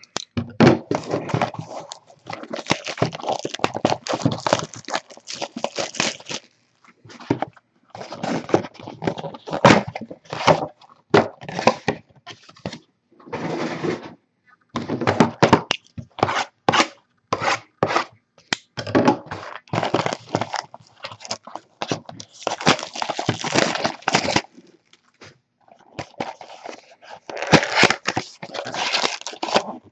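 Plastic shrink wrap being slit and torn off a 2014 Topps Finest Football hobby box, crinkling and crackling in irregular bursts, with a short pause near the end before more crinkling.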